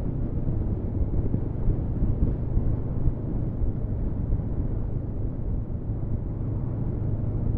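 Honda CB500F parallel-twin engine running steadily while riding, with wind and road noise over the microphone.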